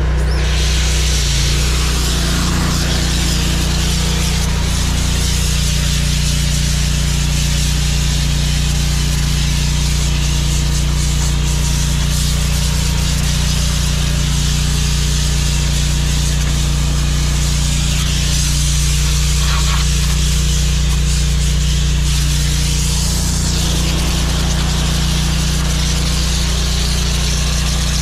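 Water hissing steadily from a hose spray nozzle as a trailer is washed down, over the steady drone of an engine running.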